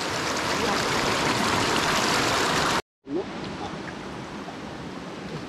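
Rushing stream water, a steady hiss. It cuts off suddenly about three seconds in and comes back quieter, with a few faint high chirps.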